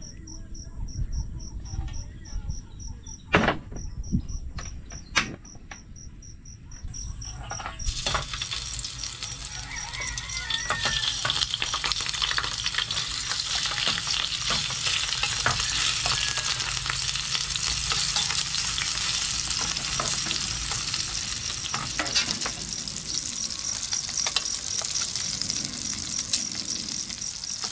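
Pork slices frying in hot oil in a stainless steel pan on a portable gas stove. A few sharp clicks come first. About eight seconds in, a sudden loud sizzle starts as the meat goes into the oil, and it carries on steadily.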